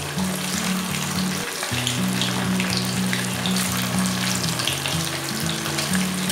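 Paneer cubes sizzling and crackling as they shallow-fry in hot oil in a kadhai, turned over with a metal spoon, over background music with sustained low notes.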